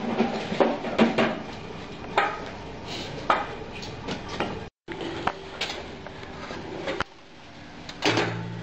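Plastic scraper dragged repeatedly across a chalk mould's perforated plate, scraping off excess wet chalk plaster: a run of rasping scrapes and light knocks, cut off briefly about halfway through.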